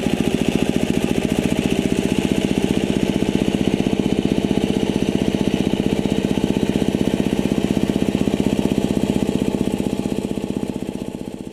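A two-wheel hand tractor's single-cylinder diesel engine running steadily with an even chugging pulse as it works a rotary tiller through a rice field, fading out near the end.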